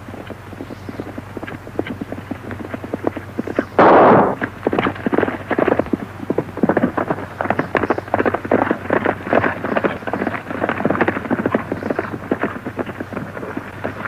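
Horses galloping on dirt, a fast, uneven patter of hoofbeats on an old film soundtrack with a steady low hum beneath. A single loud burst of noise about four seconds in stands out above the hoofbeats.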